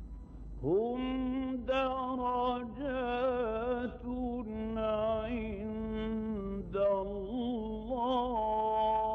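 A male Quran reciter chanting a slow, melodic phrase in one breath, starting about a second in, with ornamented turns and a long held note near the end. A low steady hum from the old recording lies underneath.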